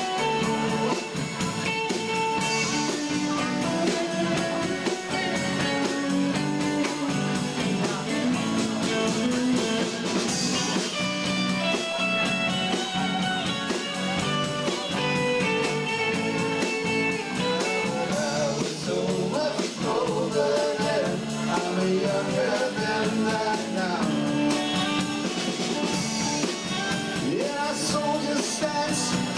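Live rock band playing, with electric guitar and bass guitar.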